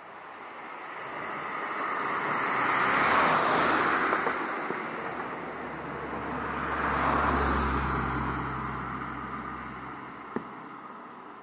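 Two road vehicles passing one after the other, the noise of each swelling up and fading away; the second carries a low engine hum. A single short sharp pop comes near the end.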